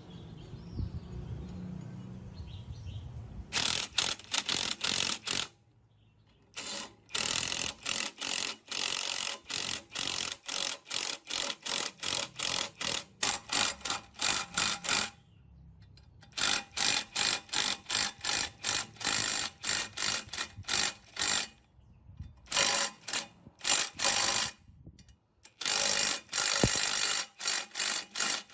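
A hand tool working on metal in quick repeated strokes, about three or four a second, in runs broken by short pauses; the sound is metallic and ratchet-like.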